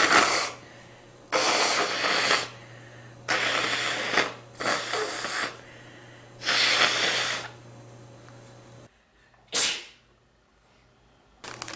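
A man sneezing over and over: a string of loud, noisy blasts about a second long each, then after a pause one short, sharp sneeze.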